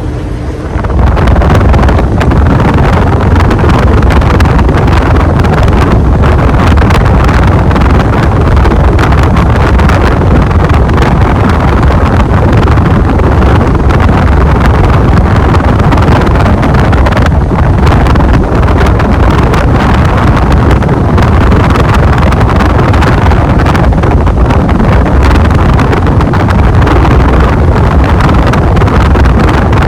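Wind from a 52-inch Gulf Coast Tiara ceiling fan running on high, buffeting the microphone as a loud, steady rushing rumble that starts about a second in.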